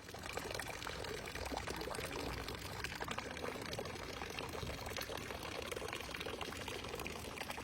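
Running water splashing and gurgling steadily, coming in suddenly at the start.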